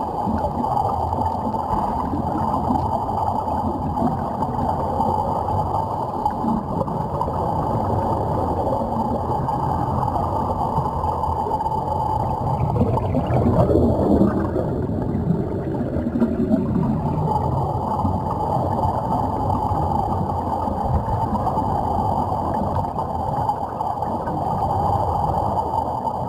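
Underwater sound of air venting from surface-supplied Sea Trek diving helmets: a steady, dense bubbling rumble, with a louder rush of bubbles past the microphone about halfway through.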